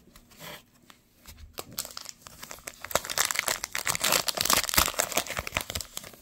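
Foil wrapper of a Panini Prizm trading-card bonus pack crinkling and tearing as it is handled and opened by hand: a dense run of crackles that builds about two seconds in and eases off near the end.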